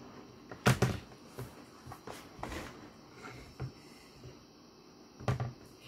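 Knocks and clatter of a Hasbro Iron Man Mega Mighties plastic action figure being handled and knocked against a tabletop: a loud double knock about a second in, a few lighter taps, and another cluster of knocks near the end.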